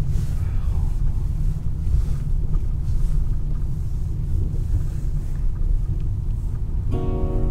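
Honda Fit car driving on a snowy, icy road: a steady low road-and-engine rumble. Plucked guitar music comes in near the end.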